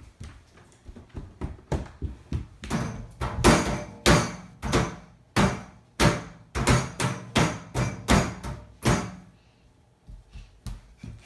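Hands banging and slapping on the front of a kitchen under-counter appliance: a dozen or so sharp, irregular bangs, sometimes two in quick succession, dying away near the end.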